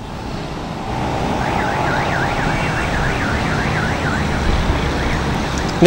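A faint warbling siren, sweeping up and down about three times a second for a few seconds, over steady road traffic noise.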